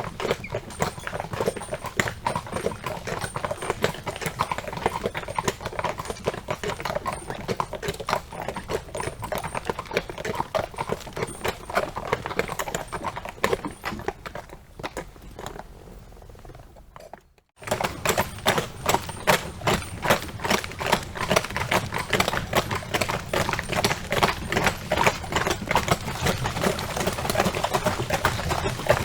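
Horse pulling a cart, hooves clip-clopping in a dense, continuous patter. About halfway through it fades away and breaks off for a moment, then starts again louder.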